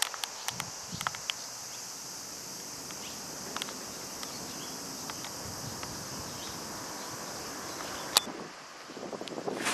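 Steady high-pitched chorus of insects droning without a break. A few sharp clicks in the first second and a half and one louder click about eight seconds in, then rushing wind noise on the microphone near the end.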